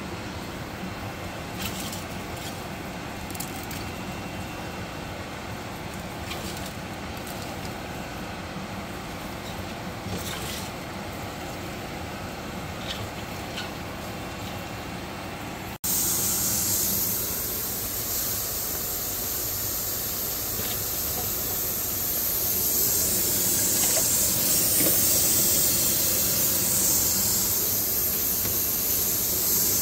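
Stovetop pressure cooker hissing steadily as steam escapes from its vent while it cooks under pressure, starting abruptly about halfway through. Before that, a steady low background noise with a few light clicks.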